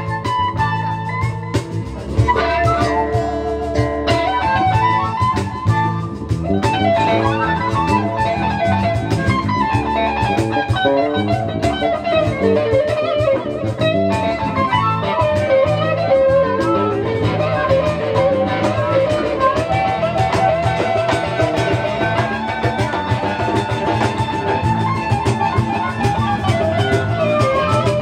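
Live blues-rock band playing: electric guitar over bass and drums, with a lead melody that bends and slides in pitch.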